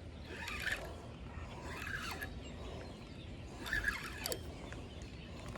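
Fishing reel being cranked in short rasping spurts while fighting a hooked fish, three bursts of reeling about half a second each.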